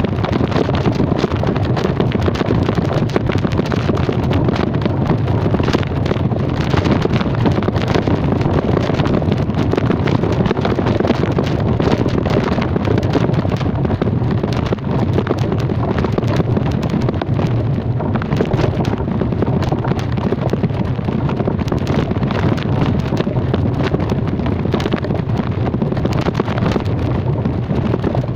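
Wind rushing over the microphone while travelling, loud and gusty, with no speech.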